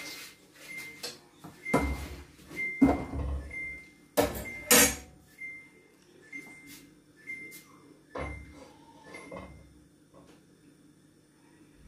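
Cookware being handled on a gas stove: a pot and utensils clattering and knocking several times, the loudest two knocks close together about four seconds in. A faint short high beep repeats about every half second until near the end.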